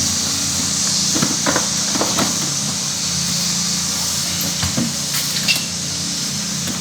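A steady machine hum with a hiss of moving air, and a few light clicks and knocks over it about a second in and again near the end.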